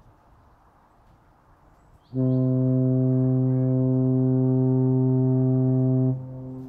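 Naval ship's tyfon air horn sounding one long, deep, steady blast that starts suddenly about two seconds in and lasts about four seconds, then drops abruptly to a fainter tone that carries on.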